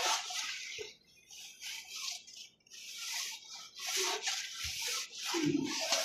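Irregular rubbing or scraping noise in uneven bursts, with brief drop-outs about one and two and a half seconds in.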